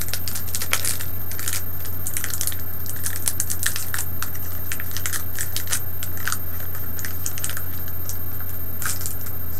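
A foil Pokémon Burning Shadows booster pack wrapper is torn open by hand, crinkling and crackling in a rapid, irregular run of sharp snaps. A steady low hum runs underneath.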